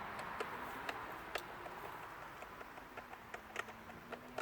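Light, irregular clicks and taps from plastic fan parts being handled as a screw on the fan's motor head is tightened, over a faint steady hiss.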